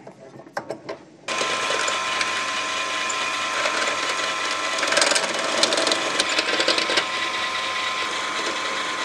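Bench drill press running, its bit boring into a wooden golok sheath piece to enlarge a hole. A few light clicks come first; the motor starts abruptly about a second in, and the cutting is loudest around the middle.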